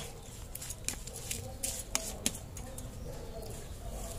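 Fingers mixing coarse salt through cut green oleaster fruit in a plastic bowl: faint, irregular small clicks and rustles.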